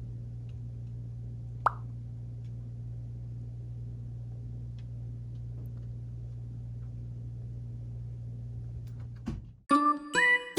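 A steady low hum with one short plop about two seconds in. Near the end the hum cuts off and bright, chiming background music starts.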